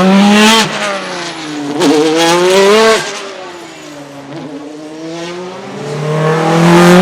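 Naturally aspirated racing car engine accelerating hard. Its pitch climbs, breaks off sharply twice at upshifts, then builds again near the end.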